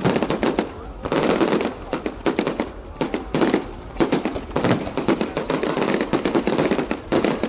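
Fireworks going off in rapid volleys: dense, overlapping cracks and pops in quick succession, coming in clusters.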